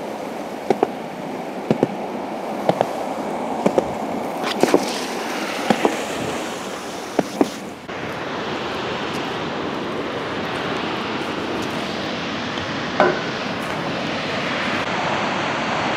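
A penny board's small wheels rolling over a wet concrete path. In the first half they clack in pairs about once a second as the front and rear wheels cross the pavement joints. Later the rolling noise is smoother and steadier, with one more clack.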